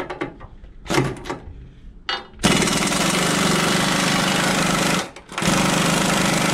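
Handheld air tool hammering rapidly against a truck's steel frame rail. It runs in two long spells, the first starting about two and a half seconds in, with a short break about five seconds in. A few light metal clanks come before it starts.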